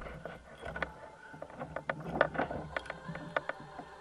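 Irregular clicks and knocks from handling a just-landed corvina and its hook and tackle on a kayak, several light taps a second.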